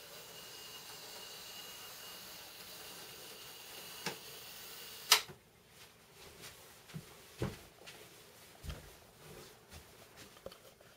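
Small electric motor of an N-gauge model railbus running on track, a steady faint whir with a thin high whine, cut off by a sharp click about five seconds in. A few faint knocks and taps follow.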